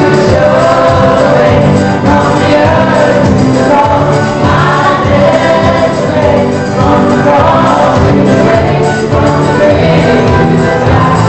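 Children's choir singing a gospel song with loud instrumental accompaniment and a steady beat.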